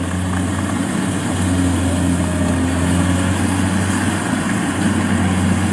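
Rice combine harvester's Kubota V2403 four-cylinder diesel running steadily under load as the machine cuts and threshes rice, a steady low engine hum with a mechanical clatter over it. The machine's parts are still tight, with no rattling.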